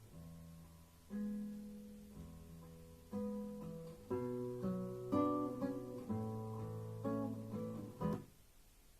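Recorded music played back through Fyne Audio F302 loudspeakers: a strummed acoustic guitar playing sustained chords over a bass line. The music stops suddenly about eight seconds in, leaving only faint hiss.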